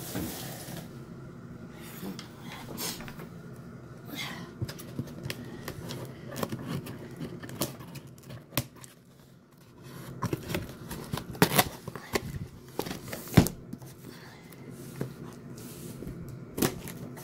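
A cardboard shipping box being handled and opened by hand: scattered scrapes and rustles of cardboard and tape, with a few sharp knocks in the second half.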